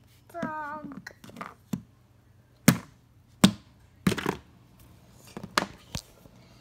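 A handful of separate sharp knocks and taps on a hard surface, about five spread over a few seconds, after a short voice-like sound near the start.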